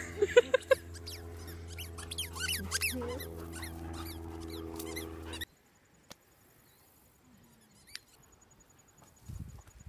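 A dog whining and yipping in high, squeaky rapid calls, with a few louder yelps near the start, over a steady low hum. It cuts off suddenly about halfway through, leaving near quiet with a couple of faint clicks.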